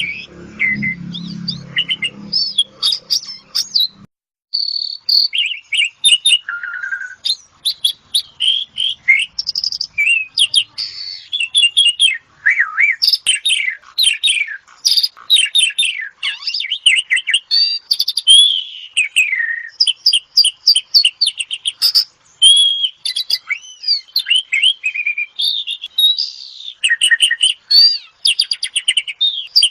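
Asian pied starling (jalak suren) singing a long, varied song of whistles, chirps and rapid trills without a break. A low hum underlies the first few seconds, and the sound cuts out briefly about four seconds in.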